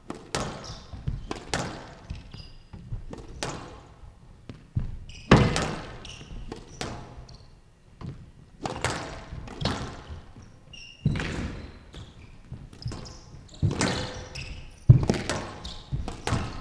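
Squash rally: the rubber ball smacks sharply off rackets and the glass and front walls about once a second, each hit echoing through the hall, with short high squeaks of shoes on the court floor between the hits.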